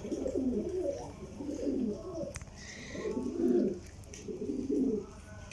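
Domestic pigeons cooing: four low, rolling coos one after another, with a single sharp click about halfway through.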